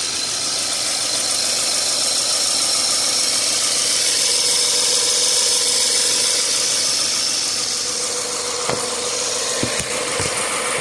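A 2013 Subaru Impreza's flat-four engine idling steadily, with a few faint knocks near the end.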